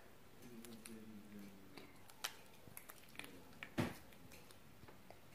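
Soft slime stretched and squeezed by hand, giving faint sticky clicks and small pops, with one louder pop a little before four seconds in.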